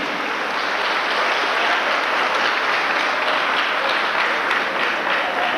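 Audience applauding: the steady clapping of many hands.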